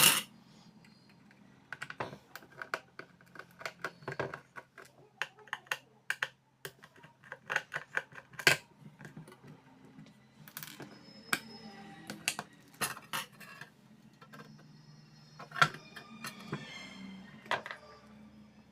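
Irregular small clicks, taps and knocks of hands working on a 50-watt flood light: its parts and a replacement circuit board being handled and fitted.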